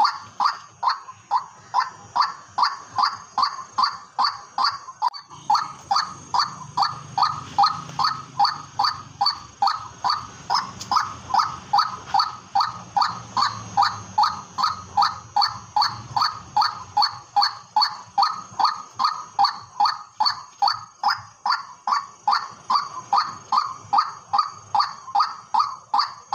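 White-breasted waterhen (keruak) calling: an unbroken, evenly spaced series of calls at about two and a half a second. A low background rumble joins from about five seconds in and fades out after about sixteen seconds.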